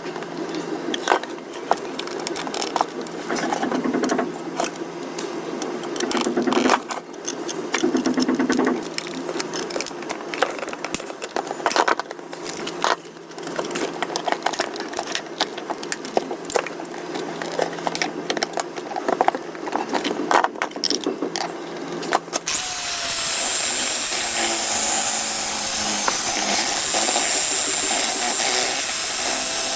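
Tool work on plastic toy parts: many irregular clicks, taps and scrapes over a low steady hum. About two-thirds of the way through, the sound changes abruptly to a steady, even noise with a faint high whine, like a small power tool running.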